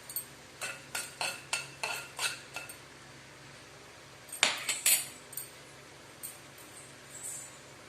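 Mustard seeds popping in hot sesame oil, sharp metallic ticks as they hit the pan. About eight ticks come in the first couple of seconds, then a louder cluster a little after four seconds in, then a few scattered pops.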